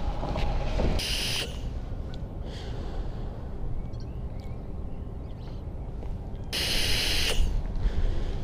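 Wind rumbling on the microphone, with two short hissing bursts, one about a second in and one near the end.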